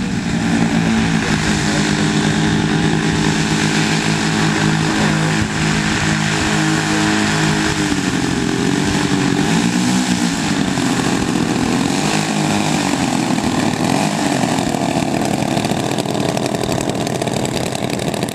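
The twin engines of a large radio-controlled PBY Catalina model run steadily at low throttle as it taxis on grass, their pitch wavering briefly around the middle.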